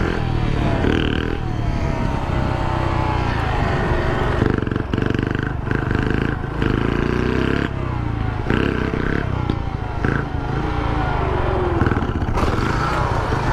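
Small motorcycle engine running, its pitch rising and falling with the throttle.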